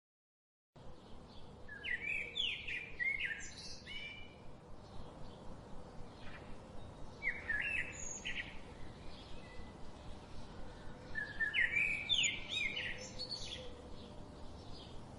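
A small bird singing: three short bursts of quick, high chirping song, the first a little after the start, one about halfway through and one near the end, over a faint background hiss. It begins out of a moment of dead silence.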